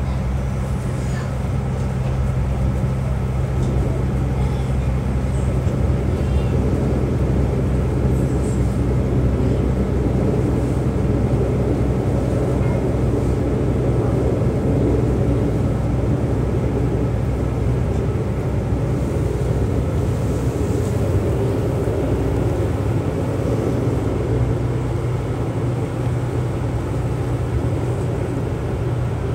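Steady running noise heard inside an Alstom Coradia LINT 54 diesel railcar under way. It is a low, even drone from its underfloor diesel engine with the rumble of wheels on the rails.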